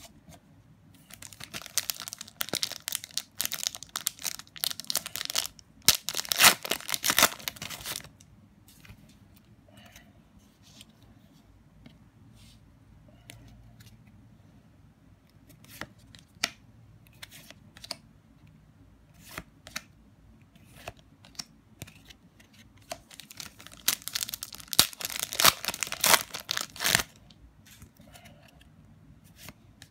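Foil trading-card booster packs being torn open and crinkled, in two spells of several seconds each, with scattered light clicks and slides of cards being handled between them.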